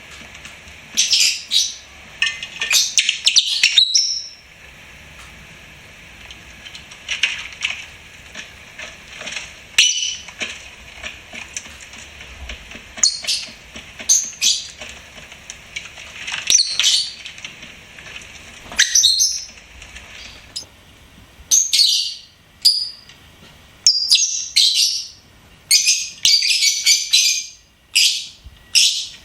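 Lovebirds chirping and squawking in short, shrill bursts, in clusters separated by brief pauses, growing busier in the last third.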